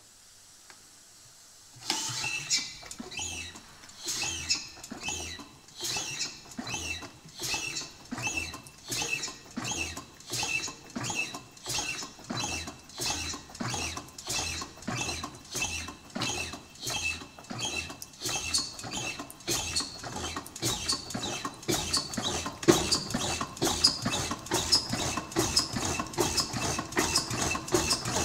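1905 MAN DM10 single-cylinder diesel engine starting: about two seconds in, an even rhythmic beat of sharp clicks sets in, and it gradually quickens and grows a little louder as the engine comes up to speed.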